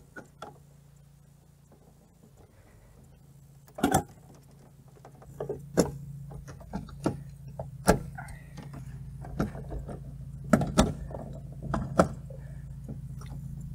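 Sharp clicks and clacks of plastic double-pole circuit breakers being pried off and snapped back onto a main panel's bus bars, about a dozen scattered through, over a steady low hum that fades in over the first few seconds.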